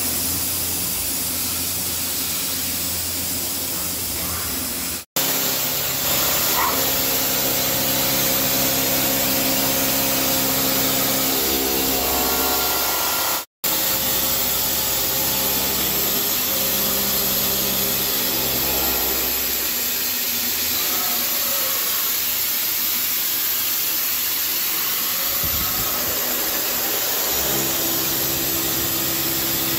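A CNC machine running as it machines a metal part, a steady hiss with a hum of steady tones whose pitches shift now and then. The sound drops out for a split second twice, about five seconds in and again near the middle.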